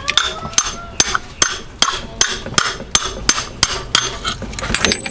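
A hammer striking a 30 mm socket held against the transmission cap of a VW Mk2's 020 gearbox, driving the cap evenly into its bore. The strikes are short and sharp, about two and a half a second.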